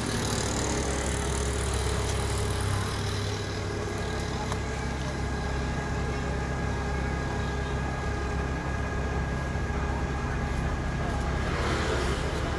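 An engine running steadily with a low, even drone, likely the vehicle or lifting machinery used to unload a heavy machine.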